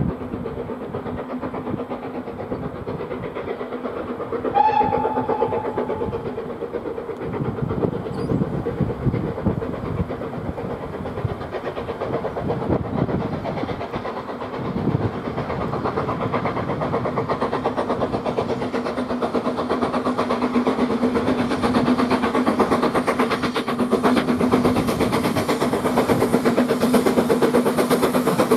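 BR Standard Class 4 4-6-0 steam locomotive No. 75078 working a train, its exhaust beats chugging rhythmically and growing steadily louder as it approaches, loudest near the end as it draws close.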